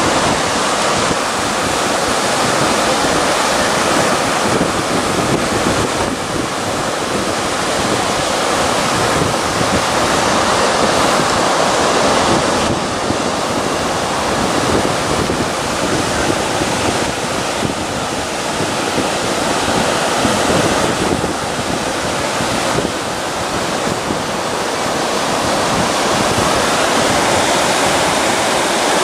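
Steady rushing of sea surf and moving water over a shallow reef, rising and falling gently, with some wind on the microphone.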